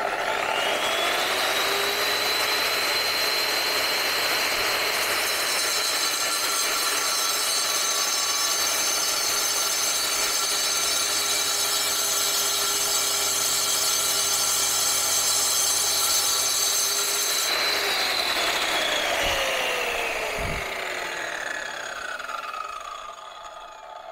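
Large 230 mm angle grinder with a diamond blade starting up with a rising whine and running steadily while it cuts lengthwise through a natural-stone window sill, with a dense gritty hiss from the cut. About 18 seconds in it is switched off and its whine falls away as the blade spins down, with a couple of low knocks.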